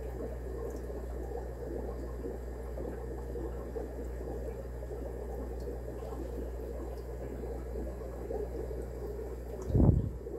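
Steady bubbling and trickling of aquarium water over a low hum, then a single dull low thump near the end.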